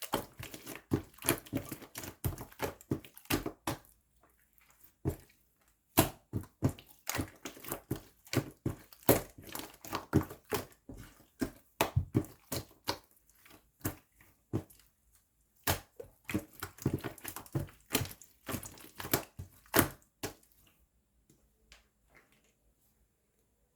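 Slime being squeezed and pressed, giving bursts of dense, sharp crackling and popping with short pauses between, dying away near the end.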